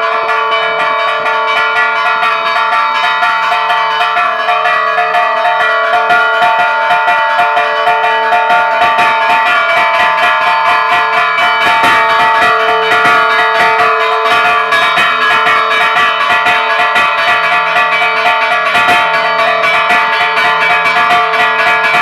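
Church bells rung by hand in a fast festive peal (toque de fiesta). The clappers are pulled by rope and chain, so the bells are struck in quick succession and their tones ring on over one another without a break.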